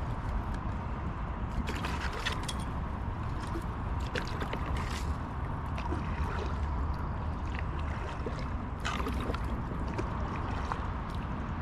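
Kayak paddle strokes in river water: the blade dipping, splashing and dripping in a few short clusters, over a steady low rumble.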